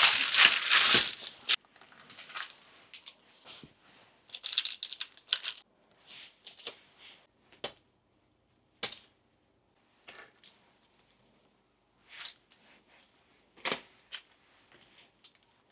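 Parchment paper rustling and crinkling as peanut dough is rolled on it, loudest in the first second or so. Scattered quieter rustles and a few sharp light taps follow.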